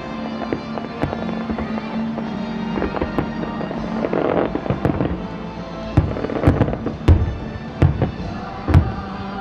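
Aerial fireworks shells bursting overhead, with scattered cracks early on and a quick run of about five loud bangs in the second half, over music playing throughout.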